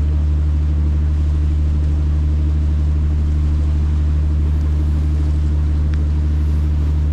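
Tour boat's engine running steadily under way, a loud, deep, even hum heard from on board.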